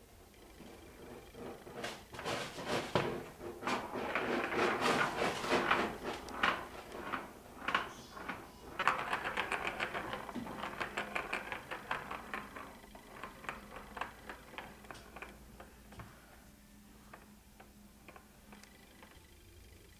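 Plastic ball rattling as it rolls around a circular ball-track cat toy: a quick, uneven run of clicks that starts about two seconds in and fades out over the last few seconds.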